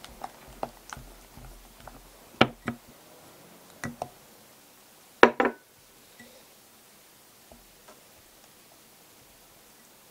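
Silicone spatula stirring thick white chocolate ganache in a glass bowl: scattered soft knocks and wet clicks against the glass, the loudest a close pair about five seconds in, then only faint ticks.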